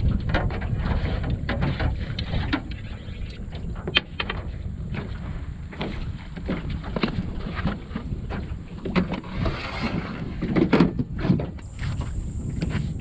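Wind buffeting the microphone, with irregular knocks and thumps as a person moves about the deck of an aluminum jon boat and handles the anchor pole. A sharp knock about four seconds in, and a louder run of thumps a little past halfway.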